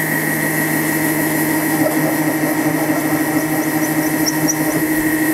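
Benchtop milling machine fitted with a 600 W brushless motor, its spindle running slowly with a steady whine while a small chamfering bit cuts a chamfer in a hole in a brass flywheel.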